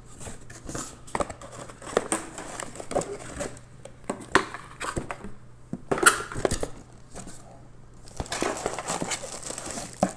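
Packaging from a docking station's box crinkling and rustling as it is handled, with scattered clicks and knocks.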